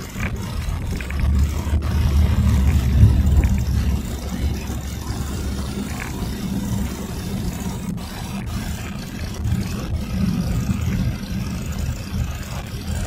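A car's engine and tyre noise heard from inside the cabin while driving: a steady low rumble, loudest a couple of seconds in.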